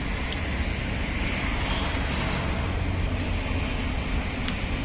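Steady street noise, mostly a low traffic rumble, with a few short sharp clicks.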